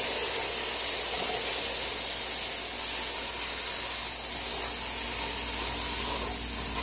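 Celery, onion and bell pepper sizzling in a hot roux as pan juices are poured in, with a steady hiss while a spatula stirs the vegetables.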